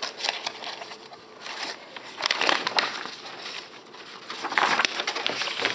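Pages of a piano sheet-music book being flipped and handled, in several separate bursts of paper rustling.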